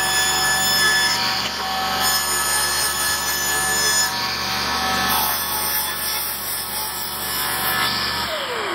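Table saw running and ripping a cedar fence picket lengthwise into strips, a steady motor hum under the noise of the blade cutting wood. Near the end the saw is switched off and its pitch drops as it stops.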